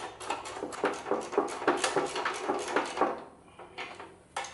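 Spanner working a nut on an engine: a quick run of metallic clicks, about four a second, that stops about three seconds in, with one more click near the end.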